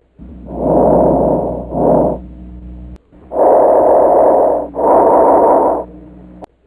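Breath sounds from chest auscultation, the vesicular and bronchial breath sounds being compared: two breath cycles, each a longer breath in followed by a shorter breath out. In the second cycle a brief pause separates the breath in from the breath out.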